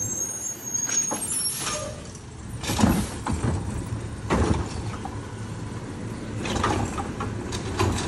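Automated side-loading garbage truck running its diesel engine as it pulls up to the carts, with a brief air-brake hiss in the first second. Its hydraulic side arm then grabs and lifts a cart, with sharp clunks about three seconds in and again a second and a half later.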